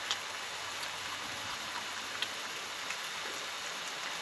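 Beef sirloin steak sizzling steadily in a small pan over a low flame, with a few faint ticks.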